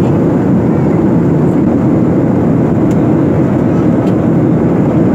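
Steady cabin noise inside a Boeing 737 airliner: a dense, even, low rush of engines and airflow, heard from a passenger seat.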